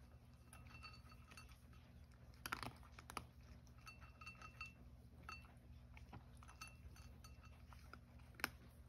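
Cat crunching dry kibble from a ceramic bowl: soft irregular crunches and clicks, with light ringing clinks against the bowl and a few sharper clicks about two and a half, three and eight and a half seconds in.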